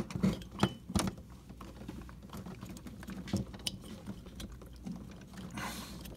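Small irregular clicks and taps of fingers working at a freezer compressor's plastic overload protector, trying to pull it off its terminal pins, mostly in the first second. It is stuck and hard to remove.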